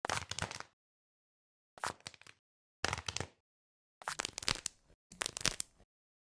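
Squishy toys being handled: five short bursts of crackling, crunching noise, each under a second long, with dead silence between them.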